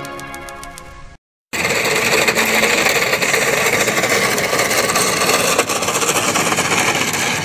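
A toy tow truck with plastic wheels, carrying a plastic bin, is dragged over a rough road surface, making a loud, steady rasping scrape. It starts suddenly after a brief silence about a second and a half in. Before that, the last of a music sting fades out.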